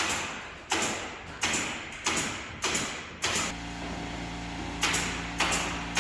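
A pneumatic nail gun firing in a quick series, about eight shots roughly two-thirds of a second apart, each a sharp crack with a short hiss, with a pause about halfway. A steady machine hum comes in just after the pause.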